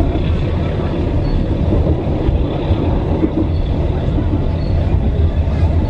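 Steady rumble of a passenger train carriage running along the track, with wheels and carriage noise, heard from inside the coach.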